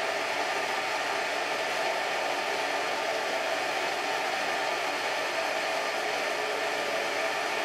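Small benchtop metal lathe running steadily, turning a brass rod as the cutting tool is fed along it on a final sizing pass.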